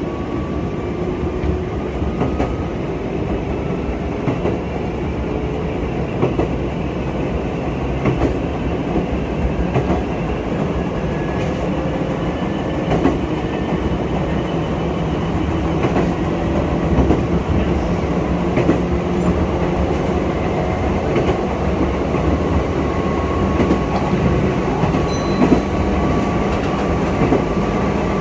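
Meitetsu 6000-series electric train heard from inside the front cab while running along the line. It is a steady rumble of wheels and running gear with a faint whine that shifts in pitch with speed, and scattered clicks from the wheels on the rails.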